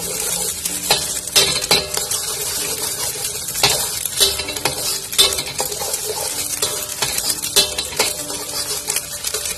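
Egg sizzling in hot oil in a metal wok while a metal spatula chops and stirs it, scraping and knocking against the pan at irregular moments.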